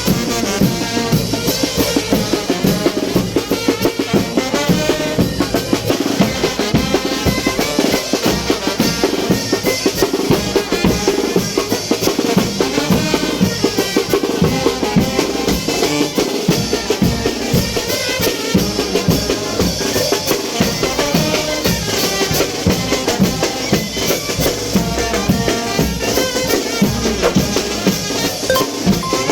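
Mexican brass band (banda de viento) playing chinelo dance music, with bass drum and snare keeping a steady beat under the horns.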